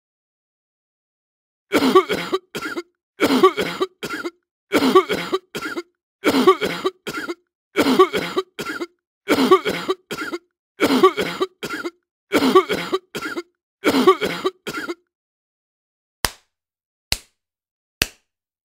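A person coughing, one longer cough followed by two short ones, the same group repeated about nine times every second and a half. Near the end come three sharp single clicks about a second apart.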